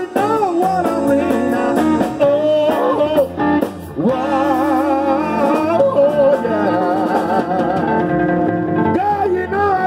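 Live band playing a slow blues-tinged love song: a male singer holding long notes with vibrato over electric guitar, bass guitar and drums.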